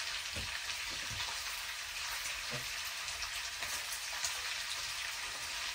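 Bacon and mini sausages frying in a pan: a steady crackling sizzle with a few faint low knocks.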